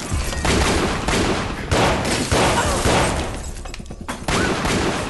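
A burst of pistol gunfire, about six shots spread unevenly over a few seconds. Each shot trails off in a long crash of breaking glass from a kitchen counter being shot up.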